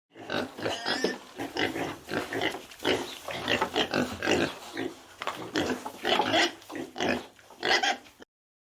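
Farm animals giving rapid, irregular short grunting calls, several a second, starting and stopping abruptly.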